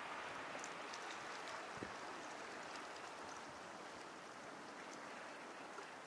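Sea water washing over the shore: a steady hiss of surf with faint tiny crackles, and one soft thump about two seconds in.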